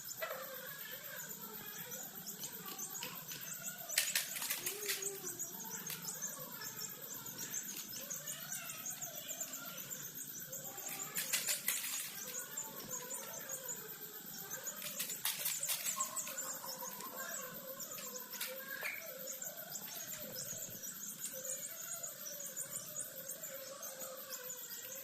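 Chickens clucking and peeping continuously, many short wavering calls overlapping. Three brief louder bursts of noise break in, about four, eleven and fifteen seconds in.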